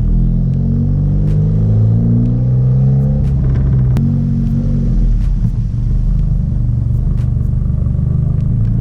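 Dodge Caliber SRT-4's turbocharged 2.4-litre four-cylinder engine and loud aftermarket exhaust, heard from the back of the car while driving: a steady, deep engine note that shifts a little about four seconds in, with short sharp ticks scattered through it.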